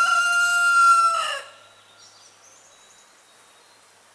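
A rooster crowing, its long final note held steady and then breaking off about a second and a half in.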